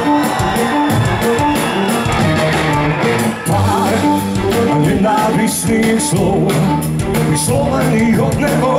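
Live rock band playing through a festival PA, with drums and guitars, recorded from the crowd.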